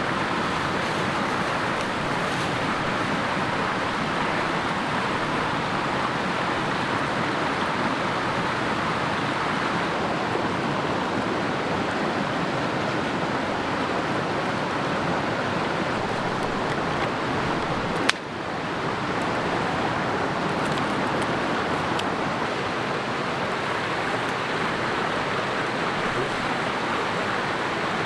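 Cascading mountain creek rushing steadily over boulders, a continuous even wash of water sound. A single sharp click about two-thirds of the way through, with the level dipping briefly after it.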